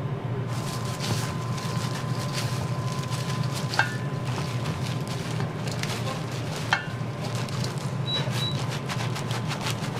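Gloved hands mixing seasoned cooked rice in a stainless steel bowl: soft squishing and rustling of plastic gloves, with two knocks against the bowl that ring briefly, over a steady background hum.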